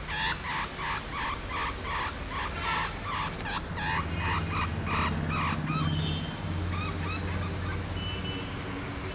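Rat caught in a cage trap, squealing in distress: loud, repeated squeals about three a second. They stop about six seconds in and give way to a few faint squeaks.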